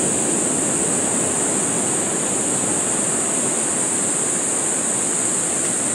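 Steady outdoor rushing noise with a constant high-pitched insect drone over it: rainforest ambience.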